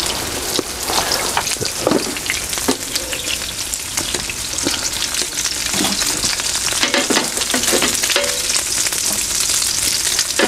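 Food pan-frying in a layer of hot oil: a steady sizzle with a dense crackle.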